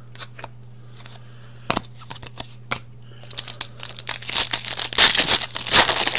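A few light taps as trading cards are set down. Then, from about three seconds in, the foil wrapper of a hockey card pack is torn open and crumpled, with loud, continuous crinkling.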